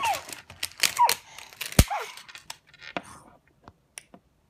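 Thin clear plastic wrapping crinkling as a small toy pony is pulled out of it by hand, with a knock on the wooden tabletop about two seconds in. A few light clicks follow as the plastic toy is set down.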